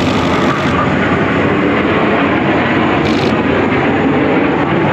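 Jet engines of an aerobatic display team's aircraft running overhead in a steady, loud roar of engine noise.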